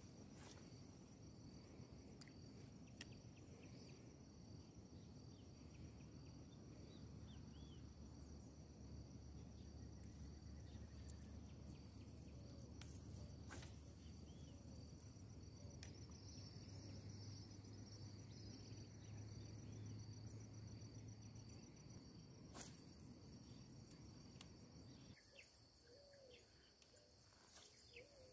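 Faint, steady high insect trill, cricket-like, over a low rumble that drops away near the end. A couple of sharp clicks and faint bird chirps come through near the end.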